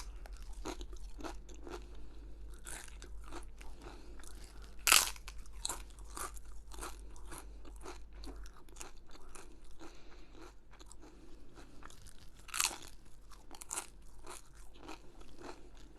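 Close-up chewing of crunchy food, a quick run of small crackling crunches with loud bites about five seconds in and again near 12 seconds.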